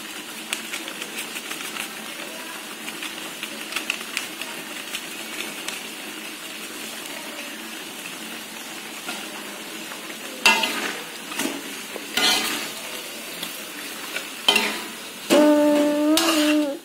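Chicken pieces in spice paste sizzling in a metal wok while a metal spatula stirs them. Several louder scrapes of the spatula against the pan come in the second half, and a short held tone sounds near the end.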